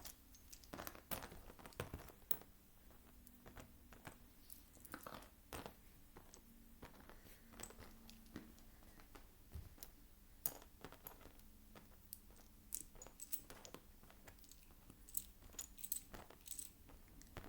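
Small plastic Lego pieces clicking and clattering faintly and irregularly as they are picked through and set down by hand.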